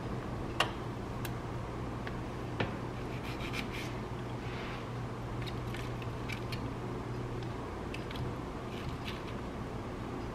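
Light scraping and scattered small clicks over a steady low hum, with two sharper clicks about half a second and two and a half seconds in.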